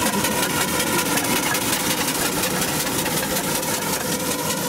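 An engine running steadily with a fast, even beat of about nine beats a second.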